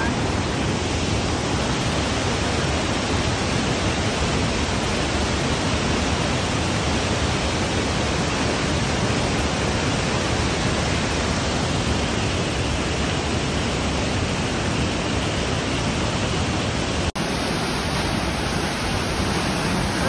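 Steady rush of water over rocks in a mountain stream and waterfall, with a momentary break about three-quarters of the way through.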